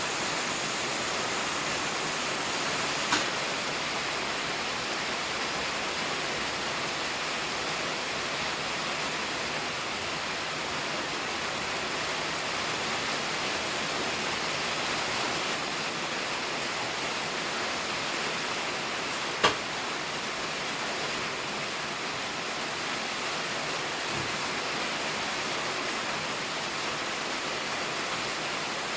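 Steady hiss of air escaping, with a sharp click about 3 seconds in and a louder one about 19 seconds in.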